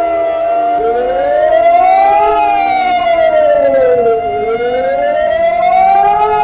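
Civil defence warning siren sounding the alarm signal: a wailing tone that rises and falls, about one cycle every four seconds, over a steady held tone.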